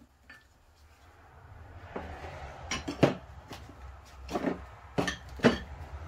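Metal tools and parts being handled on a workbench: a rustle with a series of sharp clanks and clinks, some ringing, from about two seconds in.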